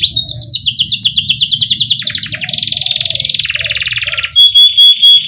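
Domestic canary singing in full voice: a chain of fast rolling trills that switch to a new trill pattern every second or so, then a clear high whistled note and a few sharp downward-swept chirps near the end.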